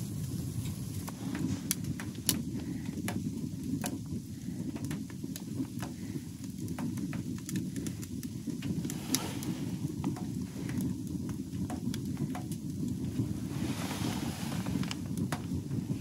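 Wood fire crackling inside a small tent wood stove, with scattered sharp pops over a steady low rumble.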